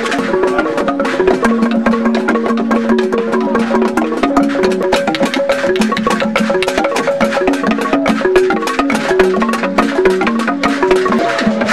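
Traditional drum and percussion ensemble playing masquerade dance music: fast, dense hand-drum and wood strokes under a repeating melodic line of held notes that step up and down.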